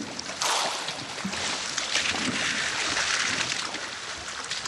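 Water splashing and sloshing at the surface of a salmon net pen, heard as a rushing hiss that starts about half a second in.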